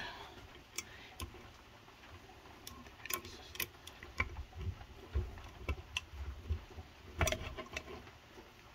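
Irregular light clicks and knocks from a hand-operated valve spring compressor being handled and its bent feet worked straight, one knock near the end louder than the rest.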